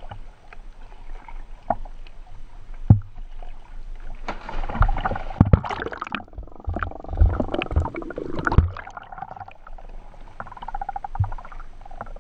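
Water sloshing and knocking around a camera at the waterline, then a loud splash about four seconds in as a scuba diver jumps in from the boat, followed by a few seconds of underwater bubbling and gurgling with dull thumps.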